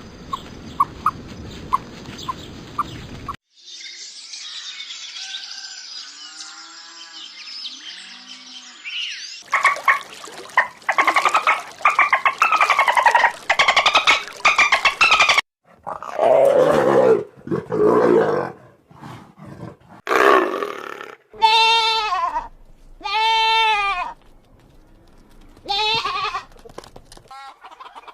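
A run of different animal calls, one short clip cut after another, ending with several short calls repeated at even spacing.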